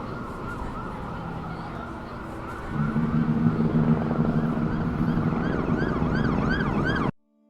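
Emergency-vehicle siren sweeping up and down. It gets louder about three seconds in, with a low steady tone added. It then switches to quick repeated yelps and cuts off abruptly near the end.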